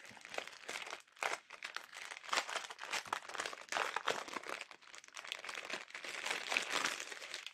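Plastic bags crinkling and rustling in irregular bursts as a strip of small zip-lock bags of rhinestones is handled and spread out.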